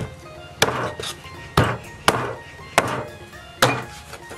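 Heavy cleaver chopping bone-in rooster pieces on a thick wooden chopping board: six sharp chops at an uneven pace, each blow hacking through hard bone.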